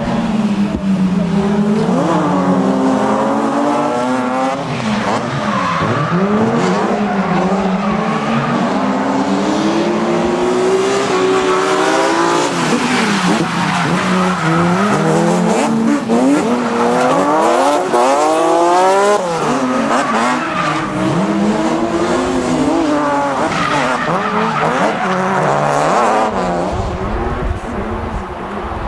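Drift car engine revving hard, its pitch climbing and dropping again and again through the slides, with tyres squealing.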